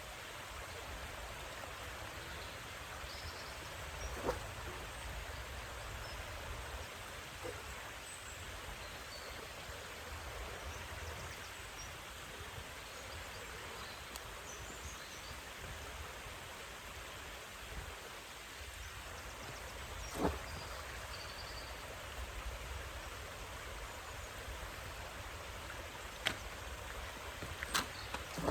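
Steady outdoor background noise, with a few faint, short knocks and clicks scattered through it.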